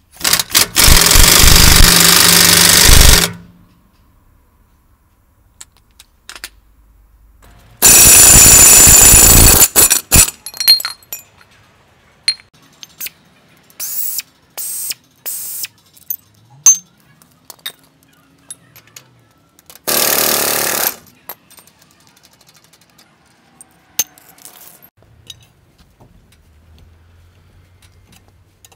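Pneumatic impact wrench hammering on a heavy truck's wheel lug nuts in several bursts: a long burst of about three seconds at the start, another of about two seconds, a run of short blips, and a final one-second burst, with small clanks in the gaps.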